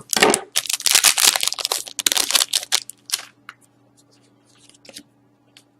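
A hockey trading card pack's wrapper crinkling and tearing as it is opened by hand: a dense crackle for about three seconds, then only a few faint rustles and clicks.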